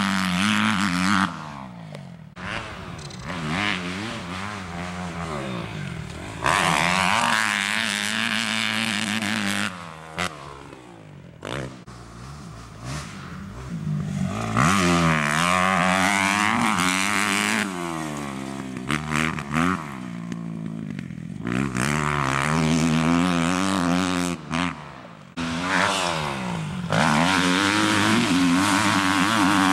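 Motocross dirt bike engine revving hard and easing off again and again as it rides the track, its pitch rising and falling through the gears, loud when close and fainter when farther off.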